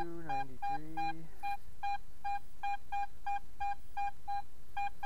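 Garrett AT-series metal detector giving a tight coin signal as its coil sweeps over the target: short, identical high beeps about three times a second. The reading is in the low 90s, a high-conductivity target that the detectorist thinks could well be silver.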